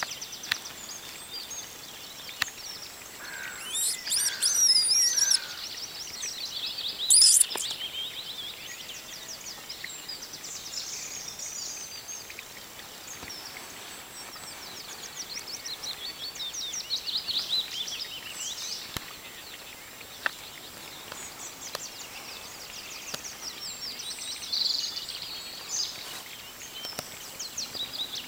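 Several songbirds singing, with short high chirps and trilled phrases throughout and the loudest bursts a few seconds in. A few brief clicks come in between.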